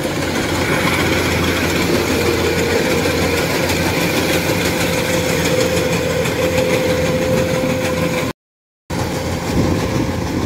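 Kubota rice combine harvester running steadily while cutting rice: a continuous engine drone with a steady whine riding over it. The sound cuts out completely for about half a second near the end, then the same running resumes.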